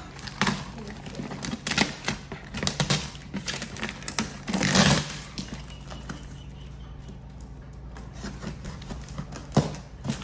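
Cardboard box being opened by hand: irregular knocks, clicks and scrapes of cardboard and packing tape, with a longer tearing sound about four and a half seconds in.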